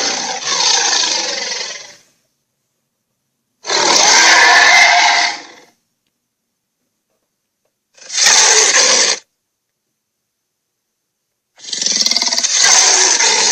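Dragon roar sound effects: a series of loud, harsh roars, each one to two seconds long, with dead silence between them. One trails off at the start, and three more follow, the last cutting off right at the end.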